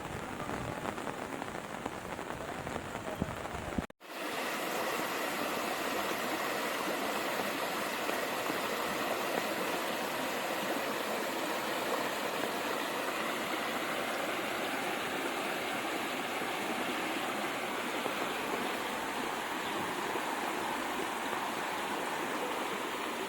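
Floodwater rushing, a steady even wash of water noise. About four seconds in it cuts out for an instant and resumes, a little louder.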